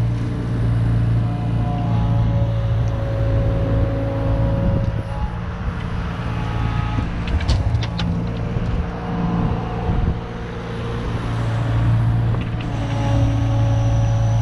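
Kubota KX71 mini excavator's diesel engine running under load while the hydraulics dig and swing, the engine note shifting as the arm works. About halfway through there are a few short rattles as soil drops from the bucket into a truck bed.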